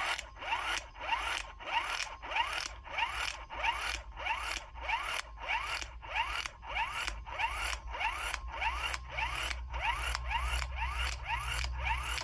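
Cheap 12-volt impact wrench hammering slowly on a truck's left-hand-thread lug nut to loosen it, about two or three blows a second. The motor whine rises before each blow.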